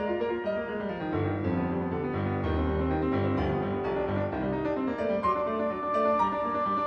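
Background piano music: a melody over low bass notes, with a high note held near the end.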